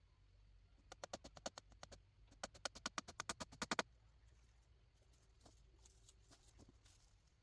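Two quick runs of sharp taps, about ten a second: the first around a second in, the second louder and building to its loudest, ending about two-thirds of a second before the four-second mark. A few faint scattered clicks follow.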